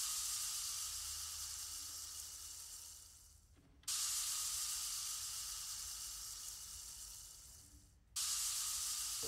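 A fizzing hiss comes three times, each starting suddenly and fading away over about four seconds.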